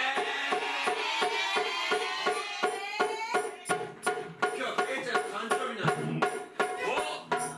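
Live wadaiko (Japanese taiko drum) ensemble music: a steady beat of drum strikes, about four a second, under a melodic line that slides upward about two to three seconds in.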